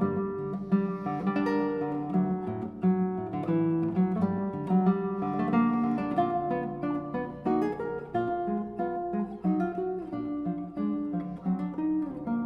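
Solo classical guitar playing a minuet: a steady run of plucked notes over a moving bass line.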